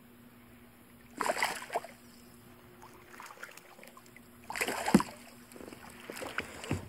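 Largemouth bass thrashing in a landing net at the water's surface: two short bursts of splashing, about a second in and again about four and a half seconds in, the second ending in a sharp knock.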